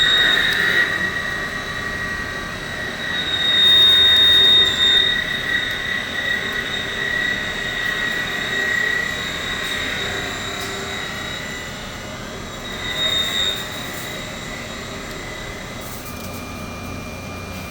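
Tormach CNC lathe's cutting tool squealing during a contour roughing pass: a steady high-pitched whine that swells louder twice, about four and thirteen seconds in. The whole angled edge of the tool is cutting, shaving the metal rather than cutting it cleanly.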